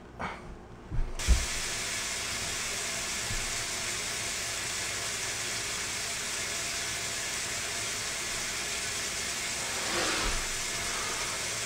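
A steady, even hiss that comes on suddenly after a couple of thumps about a second in, with a short brighter swish near the end.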